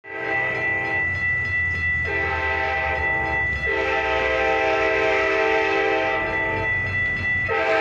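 Metra commuter train sounding its horn in a series of blasts at a grade crossing, the longest lasting about two and a half seconds and ending about six seconds in, with a fresh blast near the end. Underneath run a steady high ringing tone from the crossing's warning bell and the low rumble of the passing train.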